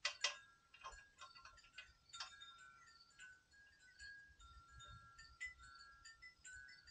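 Light metallic clicks and clinks of small-engine carburetor parts being handled, the loudest a quarter-second in, over faint high ringing tones that come and go at shifting pitches.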